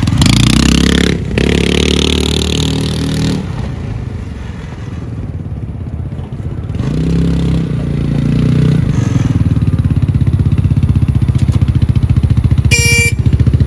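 Trailmaster Cheetah 300 EX go-kart's 18 hp water-cooled fuel-injected engine revving as the kart pulls away, fading as it drives off and growing louder as it comes back, then running steadily close by with a rapid, even pulse. A brief beep near the end.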